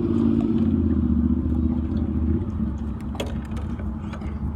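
A motor vehicle engine running close by, its higher hum dropping away about two and a half seconds in, followed by a few sharp clicks and clatter.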